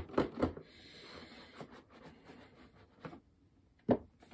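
Cardboard retail box being opened by hand: a few sharp taps and scrapes as the lid comes off, then faint scratchy cardboard sliding, and a single knock near the end.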